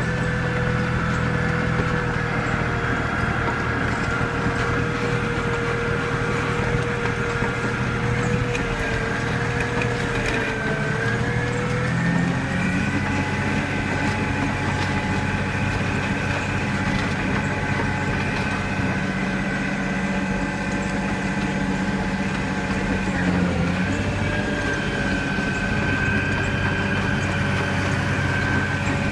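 Volvo G930 motor grader's diesel engine running steadily while ploughing snow. A whine sits above it and shifts in pitch twice, about twelve seconds in and again near twenty-three seconds.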